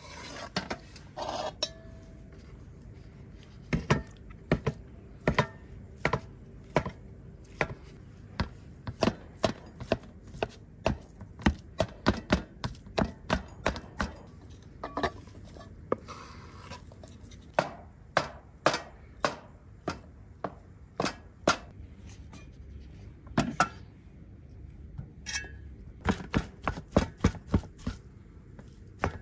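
Heavy cleaver chopping soft boiled potatoes on a wooden cutting board: sharp separate knocks starting about four seconds in, irregular at one or two a second, coming faster near the end.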